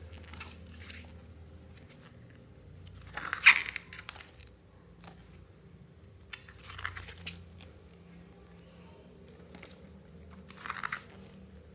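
Glossy photobook pages being turned by hand, a short paper swish every three to four seconds; the one about three and a half seconds in is the loudest.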